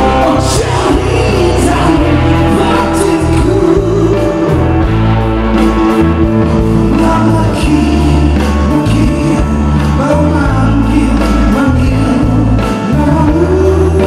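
Live rock band playing: a male singer over drums, bass guitar and electric guitars, the sung melody held in long notes.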